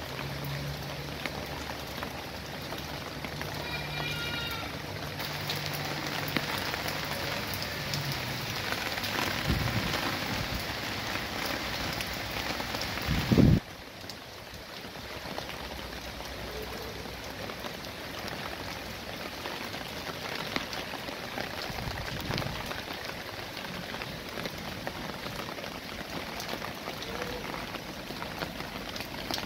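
Rain falling steadily on leaves and ground, a steady even hiss. About halfway through there is a loud low thump and the sound changes abruptly.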